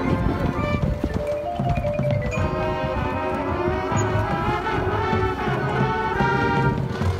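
Marching band playing its field show: held brass and woodwind chords over repeated drum hits.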